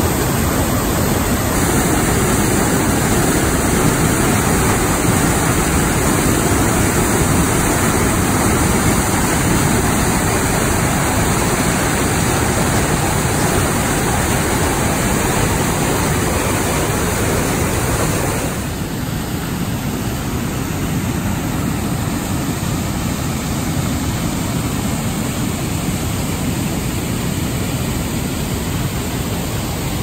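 Waterfall pouring into a pool: a loud, steady rush of falling water. About 18 seconds in it turns a little quieter and duller.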